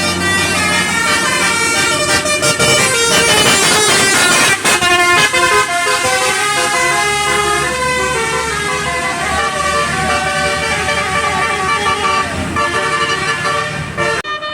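Bus telolet basuri horn, a multi-tone melody horn, playing a tune of held notes that step up and down in pitch, loud and continuous. The bus engine runs low underneath. The horn breaks off briefly near the end.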